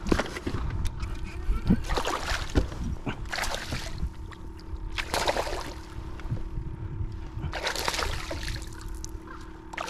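Lake water sloshing and splashing against a fishing kayak in bursts every second or two, with wind rumbling on the microphone. A faint steady hum runs underneath.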